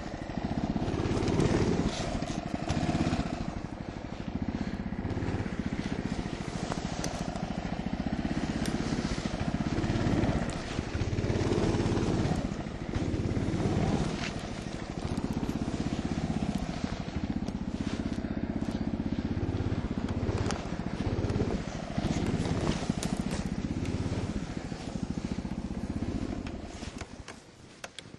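Husky mini snowmobile's small engine running as it rides through snow, its revs rising and falling with the throttle. Near the end the engine dies when the machine tilts over: a tilt stop cuts the engine.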